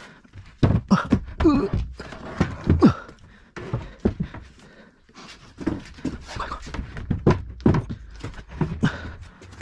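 Irregular thunks and knocks as a sink unit is shifted, turned over and pushed into place by hand, mixed with a man's grunts and panting from the effort.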